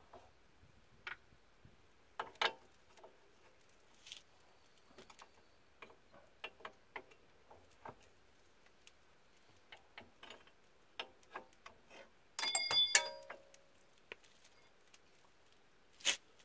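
Scattered light metallic clicks and knocks from tools and suspension parts being handled, with a louder clatter of ringing metal about twelve and a half seconds in and one sharp click near the end.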